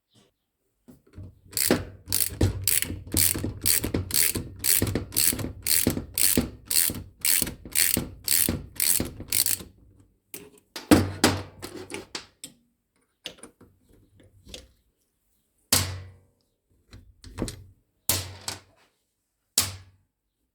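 Ratchet wrench with a hex bit loosening a bolt on a steering column assembly, clicking in a steady run of about two clicks a second for some eight seconds, followed by a few separate clicks and knocks of the tool and parts.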